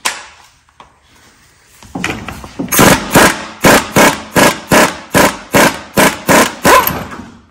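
Pneumatic impact wrench rattling in short, evenly repeated bursts, about two to three a second, starting about two seconds in, as it undoes the upper strut mount nut at the front strut tower.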